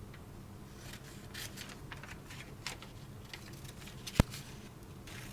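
Scissors cutting paper: a few scattered snips with paper rustling, and one sharp click about four seconds in that is the loudest sound.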